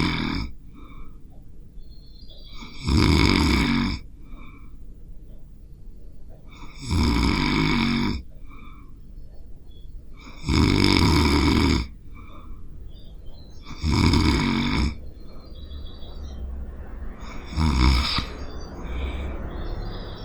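A sleeping person snoring: six loud snores, each lasting about a second and spaced about three and a half seconds apart, with quieter sound between them.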